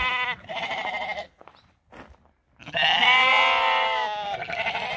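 Sheep bleating: a shorter call at the start, then a longer, louder bleat beginning about halfway through.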